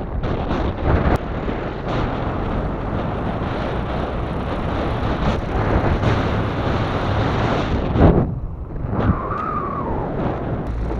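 Strong wind buffeting the microphone: a loud, unbroken rush that rises and falls with the gusts. Near the end a short whine rises and falls in pitch.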